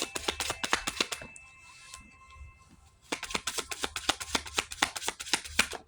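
Tarot cards being shuffled: two runs of rapid card clicks, one in the first second or so and a longer one starting about three seconds in.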